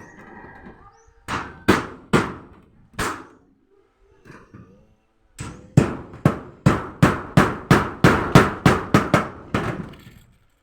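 Hammer blows. Four separate strikes come first, then after a pause a steady run of about fifteen quick strikes at roughly three a second.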